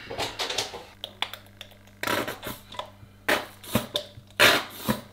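Squeezy ketchup bottle spurting onto food in several short, irregular sputters from about two seconds in: the scattergun splutter of a bottle running low.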